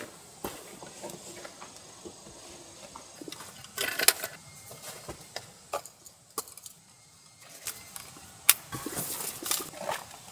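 Gear being handled while packing up inside a camper van: rustling of fabric and bags, with scattered light knocks and clatters as items are picked up and set down, the busiest bursts about four seconds in and again near the end.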